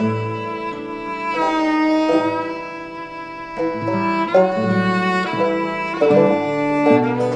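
Instrumental passage of a folk-country song: a fiddle plays a melody of held, sliding notes over low bowed strings and bass notes.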